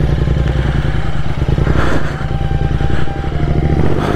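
Motorcycle engine running as the bike rides along, steady, with two brief dips in loudness about two and three seconds in.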